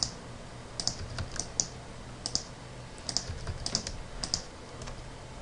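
Computer keyboard and mouse clicking: irregular short, sharp clicks, some in quick pairs, over a faint steady low hum.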